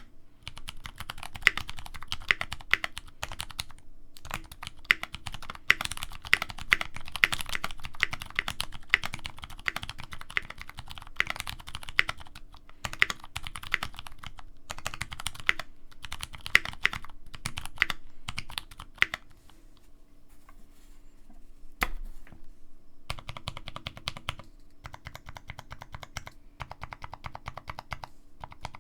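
Typing on a Tofu65 mechanical keyboard with lubed 62g Cherry Clear (Ergo Clear) tactile switches, a brass plate and GMK keycaps: fast, dense keystrokes, easing off about two thirds of the way through to a near pause with one sharp keystroke, then lighter typing resumes.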